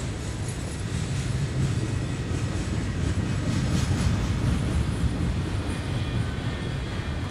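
Double-stack intermodal freight train rolling past: a steady low rumble of the container-laden well cars' wheels on the rails, with light clicking, loudest about halfway through.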